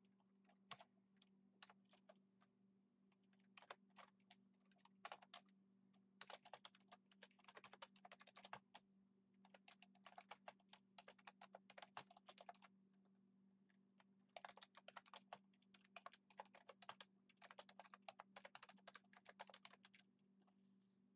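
Typing on a computer keyboard: quick runs of keystrokes broken by short pauses, over a faint steady hum.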